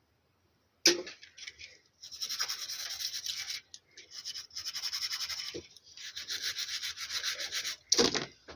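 A sharp click about a second in, then quick, scratchy rubbing strokes on a hard surface in three runs with short pauses between them, and a knock near the end.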